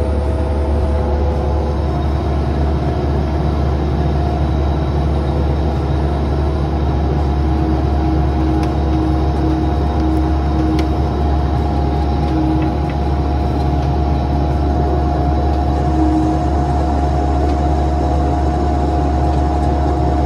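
Bobcat 337 compact excavator's diesel engine running steadily, heard from the operator's seat, with a few steady tones over its low drone.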